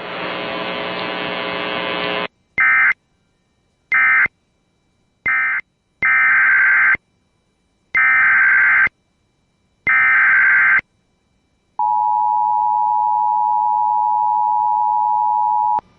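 About two seconds of buzzy noise, then Emergency Alert System data bursts: three short end-of-message bursts, followed by three longer SAME header bursts of about a second each, all warbling near 1.5–2 kHz. Then the steady two-tone EAS attention signal (853 and 960 Hz) sounds for about four seconds and cuts off.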